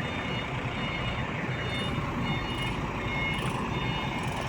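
Heavy diesel machinery running steadily, with the faint, evenly repeated beeping of a backup alarm over it.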